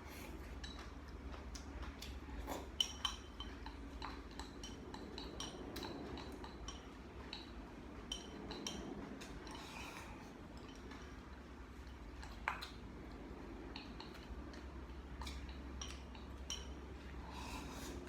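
Cutlery clinking and scraping against a dish while eating: many light taps, with a few sharper clinks about 3 seconds in and again about 12 seconds in.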